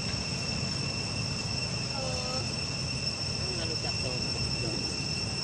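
Steady, high two-tone drone of insects (crickets or cicadas), with one short arching call about two seconds in and a few quick squeaky chirps after it.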